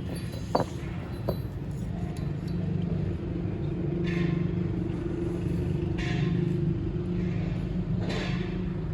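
A machine or engine running steadily with a low hum. A few knocks come in the first second and a half, and a short hiss comes about every two seconds from about four seconds in.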